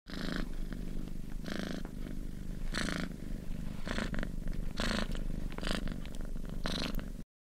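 Handheld electric massager buzzing steadily as it is pressed against a pug, with short hissing bursts about once a second. The sound cuts off suddenly near the end.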